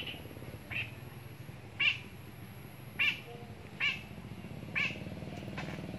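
A small animal giving six short, high calls, repeated about once a second.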